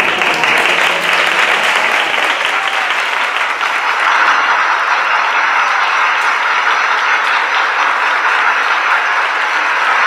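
Audience applauding: dense clapping that starts abruptly and holds at a steady level.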